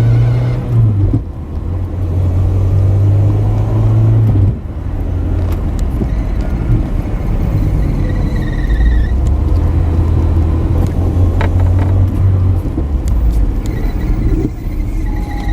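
Citroën BX engine running steadily, with a high-pitched squeal from its hydraulic pump that rises and fades out about halfway through and comes back near the end.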